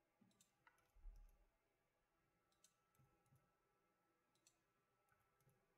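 Near silence broken by a handful of faint, irregular clicks from a computer mouse and keyboard keys, with a soft low thump about a second in.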